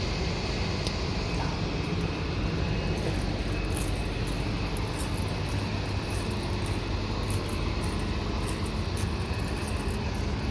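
Steady low rumble of outdoor background noise with no clear single event.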